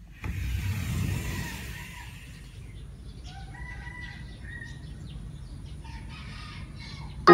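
Birds calling, with a few drawn-out calls about one second in and again around four seconds in, over a low rumble on the microphone that is loudest during the first two seconds.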